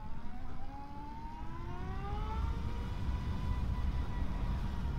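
Motorcycle speeding up: its tone rises in pitch for about two and a half seconds, then holds steady, over a low wind rumble on the microphone.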